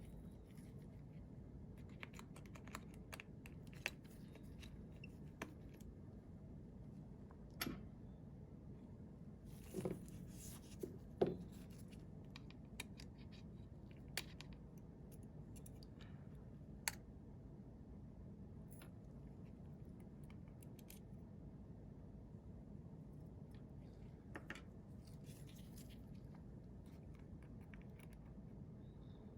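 Sparse small clicks and taps of precision repair tools on the parts of an opened iPhone 7 as the battery is being disconnected, with a few brief scrapes about ten seconds in and again near the end, over a faint steady low hum.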